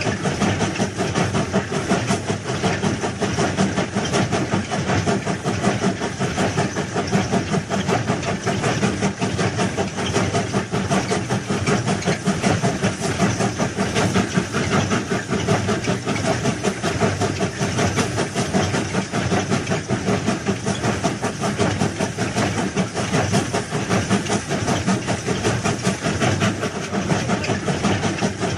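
Track-laying machine running as it sets concrete sleepers, its engine and mechanism making a loud, steady machine noise with a fast, even pulsing clatter.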